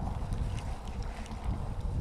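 Wind buffeting the camera microphone: a low, uneven rumble.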